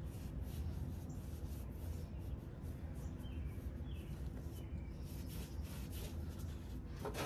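Quiet work under a Jeep: faint scattered clicks of hand-tool and bolt handling at the transmission crossmember over a steady low hum. Three short, high, falling chirps come about 0.8 s apart near the middle.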